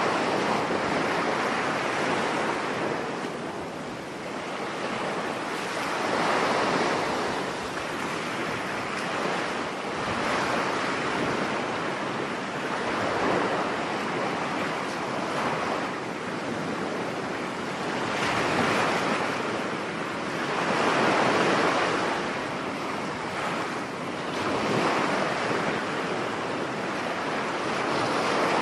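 Sea surf breaking on a beach, with wind. Each wave swells and fades over a few seconds, about eight times.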